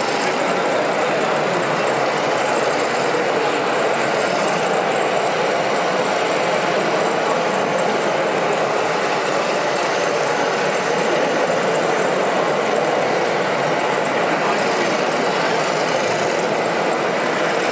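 RC model mobile screening plant running steadily: small electric motors and drives with a fast, fine rattle, over the steady noise of a busy hall.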